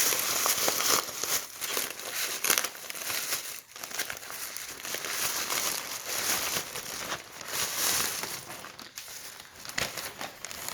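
Packaging being unwrapped by hand: continuous crinkling and rustling, with many small sharp crackles.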